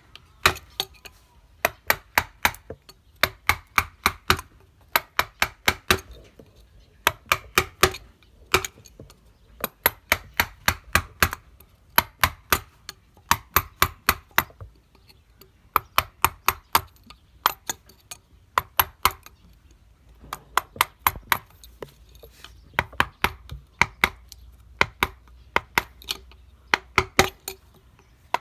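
Wood being carved with hard strokes: quick runs of sharp knocks, four to seven at a time, with short pauses between runs.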